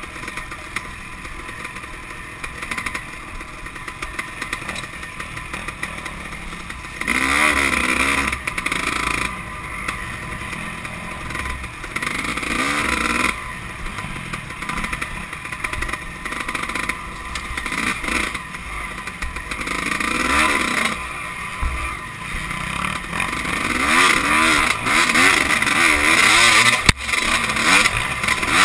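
Dirt bike engine heard close up from on the bike while riding a wooded trail, revving up and down again and again with the throttle. It is loudest in the last few seconds.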